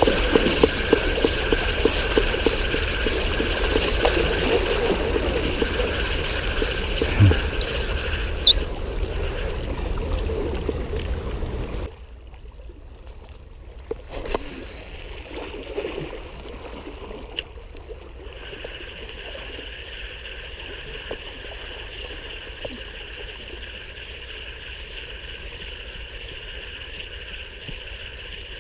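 Wind noise on the microphone over water lapping against breakwater rocks. The heavy rumble cuts out suddenly about twelve seconds in, leaving a quieter, steady wash of water.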